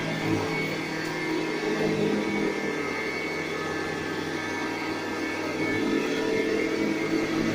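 Montgomery Ward vacuum cleaner running steadily while vacuuming, a motor whir with a steady hum whose lower notes shift a little.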